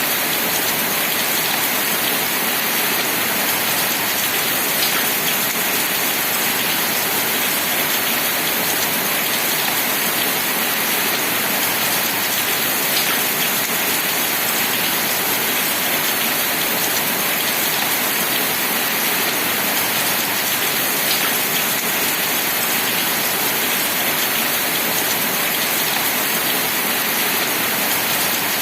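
Steady rain falling, a dense, even patter with a few separate drops ticking through it.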